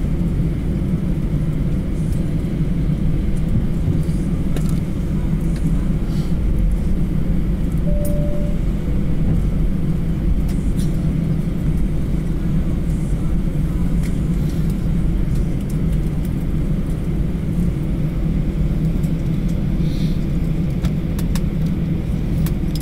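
Steady low rumble inside the cabin of an Airbus A320 taxiing slowly after landing: the engines at idle and the cabin air running. A brief single tone sounds about eight seconds in.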